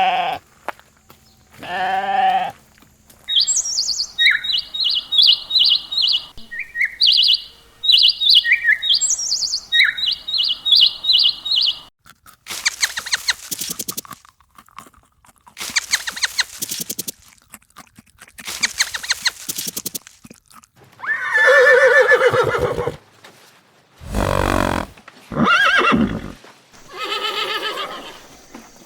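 A string of separate farm-animal calls: a goat bleats twice at the start, then many quick high chirps follow for several seconds. After that come several breathy noise blasts and more calls, one of them deep and low.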